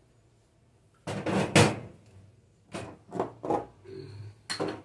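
Objects being handled and set down at a stainless-steel kitchen sink: a loud clatter about a second in, then several shorter knocks and bumps.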